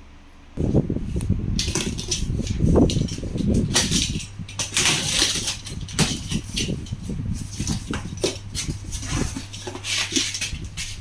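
Cardboard cartons being handled and a taped box slit open with a utility knife: irregular scraping, tearing and knocking of cardboard and packing tape, starting about half a second in.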